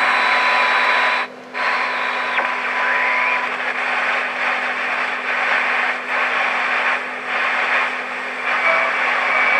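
Hiss and static from a Marconi model 2004 seven-transistor AM radio's speaker as it is tuned. A steady test tone cuts off about a third of the way in, a short whistle rises, and the hiss dips and swells.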